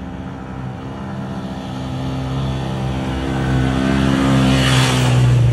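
A small step-through motorcycle and a Honda Brio hatchback climbing a steep road toward the listener, their engines pulling at a steady pitch and growing steadily louder as they near.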